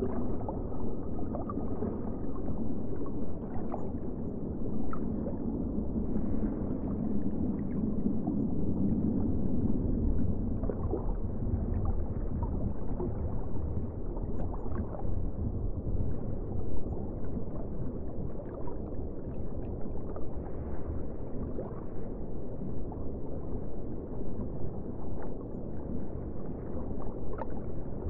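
A steady, low, muffled rush of water with nothing high in it, with a few faint brief sounds scattered through it.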